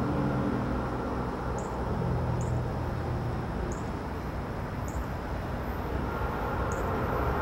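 Steady low rumble of distant vehicles, with a low hum that fades after the first few seconds, and faint short high chirps about once a second.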